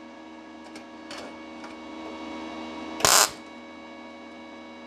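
MIG/MAG inverter welder striking a single short tack weld on 0.4 mm sheet steel about three seconds in: a brief, loud crackling arc burst over a steady faint hum. The welder is turned right down to about 8 V and 50 A with the shielding gas at 4 litres, and the tack takes without blowing a hole in the thin sheet.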